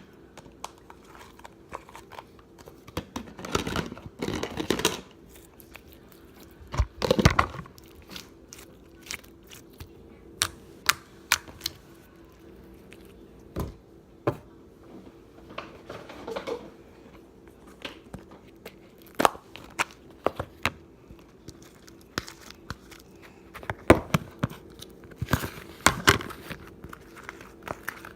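Slime being squished and stretched by hand, with scattered sticky clicks and crackling pops and a few longer squelching stretches.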